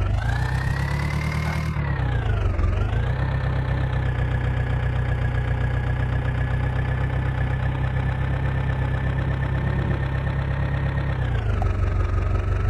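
Heavy diesel engine running steadily, its speed rising briefly near the start, dipping about two and a half seconds in, then holding even before easing down a little near the end.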